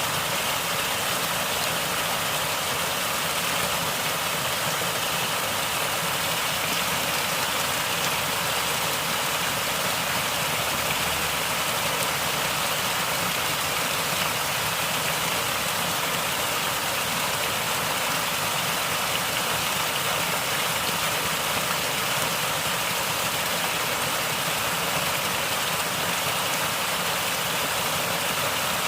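Natural stream water flowing and gurgling, a steady unbroken sound.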